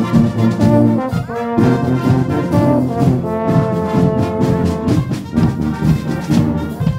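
Marching brass band playing: held brass chords over sharp, regular beats, with a rising brass glide about a second and a half in. The held chords stop about five seconds in, leaving shorter punchy notes and beats.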